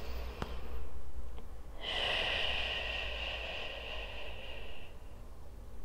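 A woman's long, slow out-breath, heard as a steady hiss that starts about two seconds in and fades out about three seconds later.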